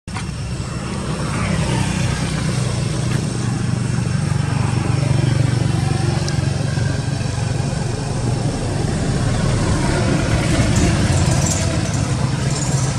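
A motor vehicle engine running steadily, a low continuous drone.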